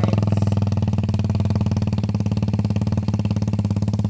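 Suzuki Raider 150's stock single-cylinder four-stroke engine running through an open NLK racing pipe at a steady speed, with even, rapid exhaust pulses.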